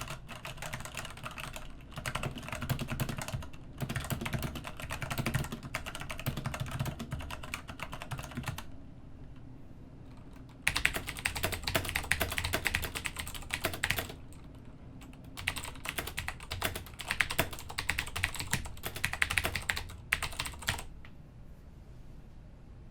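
Typing on mechanical keyboards in a switch sound test: an Ajazz AK33 with linear Zorro Black switches and a Roccat Ryos MK Pro with clicky Cherry MX Blue switches. There are three runs of rapid keystrokes with short pauses between them, and the later runs have the loudest clacks.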